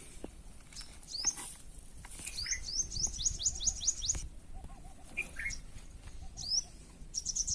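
Small bird chirping: a few single rising chirps and a quick run of about eight rising notes, with a fainter warbling call lower in pitch.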